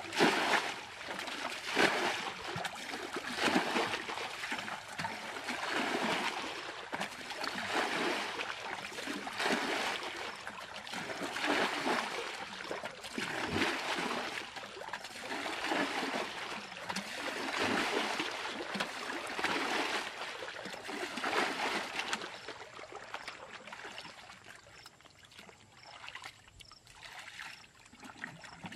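Muddy ditch water being bailed out with a plastic bucket: repeated scoops and splashes of thrown water, about one every two seconds, growing quieter near the end.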